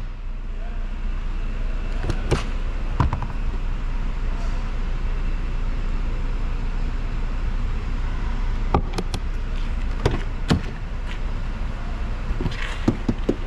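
Sharp clicks and light knocks from a Mercedes-Benz E300's fuel filler flap and rear door being worked by hand, over a steady low rumble. The clicks come singly at first, then in a cluster past the middle and again near the end.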